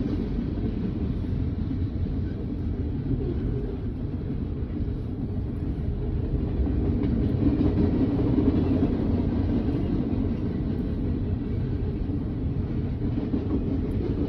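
Freight train cars rolling past: a steady low rumble of steel wheels on the rails, heard from inside a car.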